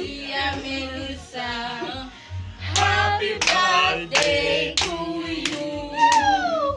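A small group singing a birthday song together, with hand clapping to the beat from about two and a half seconds in. The last sung note slides down at the end.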